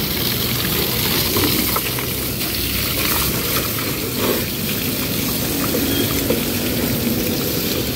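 Water from a garden hose spraying against a car's side and wheel and splashing onto paving stones: a steady hiss.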